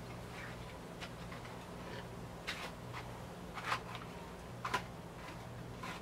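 Scattered light clicks and taps from small objects being handled in the hands, over a steady low hum.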